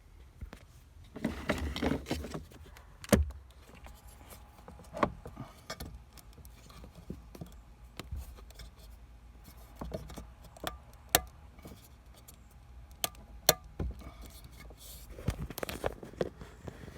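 Hand tools and small metal parts being handled: scattered sharp clicks, clinks and knocks, with two longer stretches of rustling and scraping, one about a second in and one near the end.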